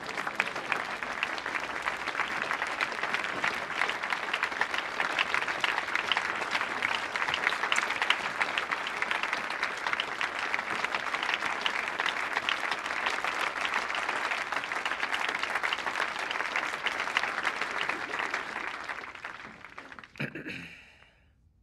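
A large crowd of office staff applauding, a dense steady clapping that fades away near the end, followed by one short sound.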